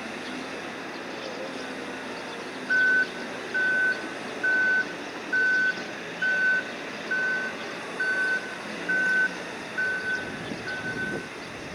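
Reversing alarm beeping: ten short beeps of one pitch, a little under one a second, starting about three seconds in and stopping near the end, over a steady background of machinery and outdoor noise.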